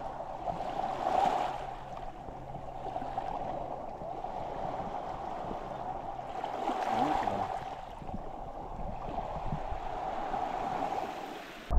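Small waves lapping and washing over the rocks and pebbles at the water's edge, swelling slightly about a second in and again around seven seconds.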